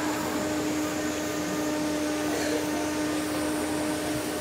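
A steady machine hum with a constant low tone, like a motor, fan or pump running, holding level throughout.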